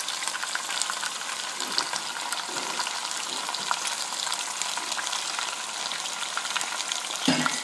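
Chicken pieces and golden-brown sliced onions frying in hot oil in a pan: a steady crackling sizzle, with a short louder sound near the end.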